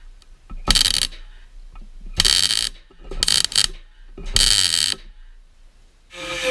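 Welder laying short tack welds on a steel moustache bar: four crackling bursts, each under a second, with pauses between. Near the end a continuous grinding noise with a steady tone starts.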